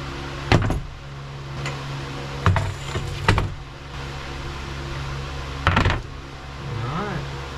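Metal drive-shaft tubes of a Stihl pole saw knocking and clattering on a wooden workbench as they are pulled apart and set down, about four sharp knocks, over a steady background hum.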